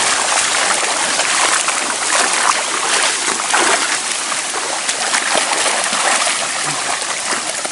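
Continuous splashing and sloshing of shallow river water as a cast net full of caught tilapia is hauled through it by a man wading, with many small irregular splashes.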